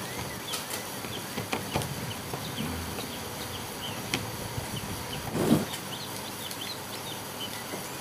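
Screwdriver working the body screws out of a twin-tub washing machine's plastic cabinet: scattered faint clicks and scrapes, with one louder bump about five and a half seconds in. Small birds chirp in the background.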